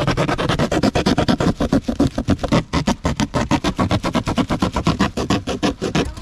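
Small red-handled hacksaw sawing through corrugated cardboard: fast, even rasping strokes, roughly eight a second, stopping at the very end.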